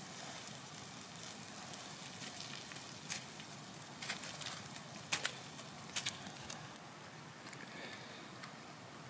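Wood campfire crackling steadily, with a handful of sharp pops.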